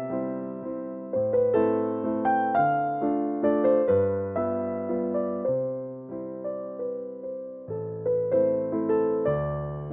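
Background music: a gentle piano melody of struck notes that ring and fade, several each second.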